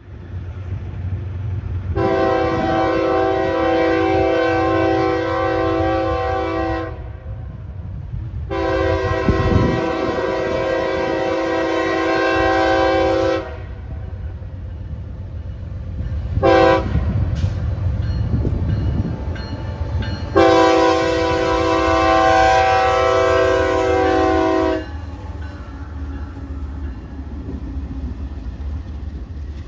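Locomotive multi-chime air horn sounding two long blasts, a short one and a final long one: the long-long-short-long grade-crossing signal. Underneath is the steady rumble of the passing train's engines and wheels.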